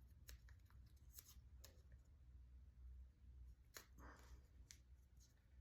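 Near silence with faint clicks and a brief soft crackle of tape as a piece of tape is wrapped along the edges of a razor blade.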